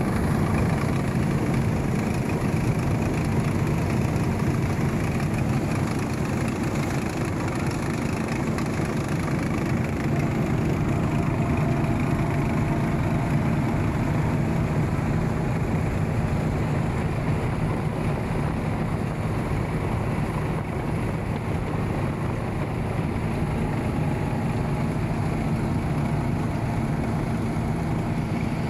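Heavy vehicle's engine running steadily while driving, a constant low drone without changes in speed.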